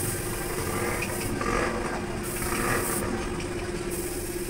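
Steady machine hum with a constant low drone, with faint rustling of handled parts about midway.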